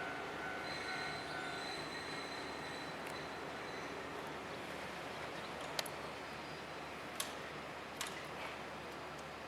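Kishigawa Line electric train running past at a level crossing: a steady rumble that slowly fades, with a high thin whine from the wheels that stops about two seconds in. Three sharp clicks come in the second half.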